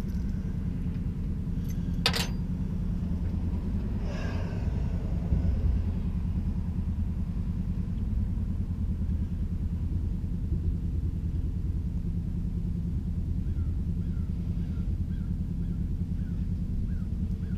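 Steady low rumble throughout. A sharp click comes about two seconds in and a brief scraping sound around four to five seconds in, from hand work on a truck's plastic radiator fan shroud and radiator support.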